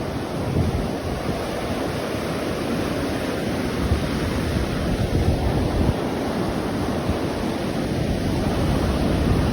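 Atlantic Ocean surf washing onto the shore: a continuous rushing roar of breaking waves, heaviest in the low end.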